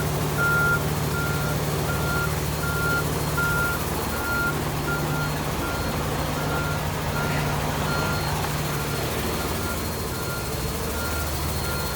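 Repeating electronic warning beep, about two beeps a second, over the steady hum of an idling heavy truck engine.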